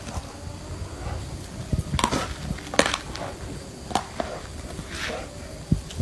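A dog biting and worrying a large snake on the ground: scuffling, with a few sharp cracks and knocks scattered through.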